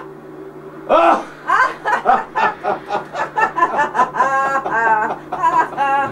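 A person laughing: a long run of short, pitched ha-ha sounds starting about a second in, over a steady low hum.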